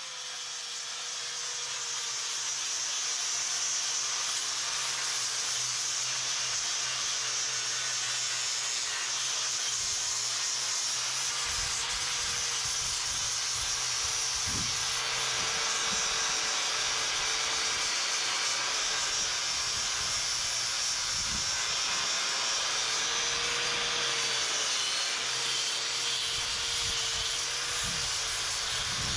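Handheld angle grinder with an abrasive sanding disc spinning up and then grinding steadily against concrete, giving a steady high hiss over a motor whine that sags slightly now and then as the disc is pressed in. Occasional low knocks come in the second half.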